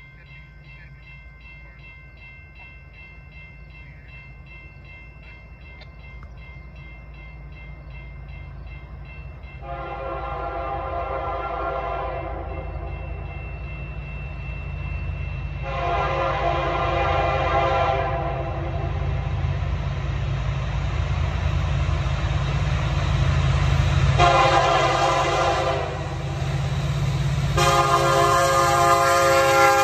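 Level-crossing warning bell ringing, then a freight train's diesel locomotive approaching with its air horn sounding the grade-crossing signal: long, long, short, and a last long blast starting near the end. Under the horn a low engine rumble grows steadily louder as the locomotive nears.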